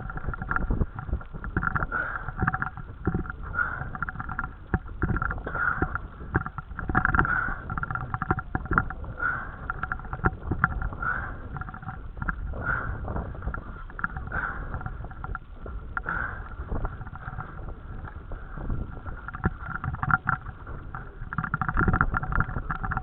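Fishing reel's drag whining in uneven surges as a hooked giant trevally keeps taking line. Water and wind rumble against a small dinghy underneath.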